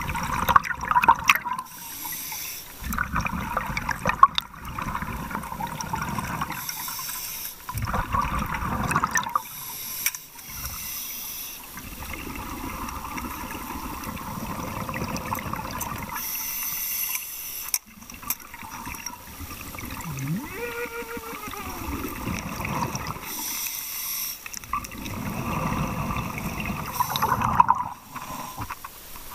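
Scuba diver breathing through a regulator underwater: a hiss on each inhale and a burst of bubbling exhaust bubbles on each exhale, repeating every few seconds. Near the end, water sloshes as the diver breaks the surface.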